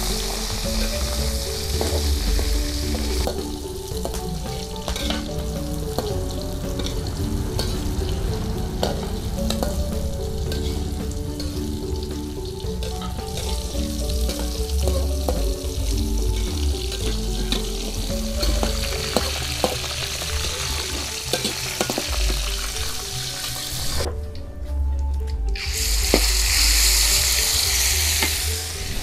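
Boiled chicken hearts sizzling as they fry in oil in a metal wok, with the clicks and scrapes of a metal spatula stirring them against the pan. Near the end, after a brief break, a louder, sharper sizzle as ground spice paste fries in hot oil.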